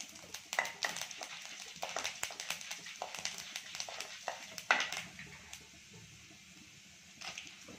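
Lentils and mustard seeds frying in hot oil in a kadai while a wooden spatula stirs them, giving irregular light crackles, clicks and scrapes. It goes quieter for the last couple of seconds, with one more click near the end.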